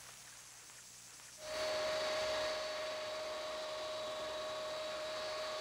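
Faint hiss, then about a second and a half in a jet aircraft engine's steady whine sets in over a rushing noise and holds.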